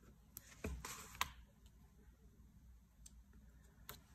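Faint scattered clicks and taps, about five of them with the sharpest about a second in, from planner stickers and paper being handled and pressed down.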